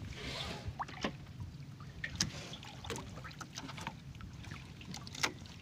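Scattered small clicks and knocks of fishing line, hook and fish being handled on a wooden boat deck, over a low steady rumble.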